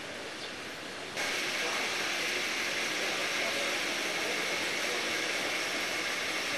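Steady background noise, an even hiss with no distinct events, which jumps louder about a second in and then holds steady.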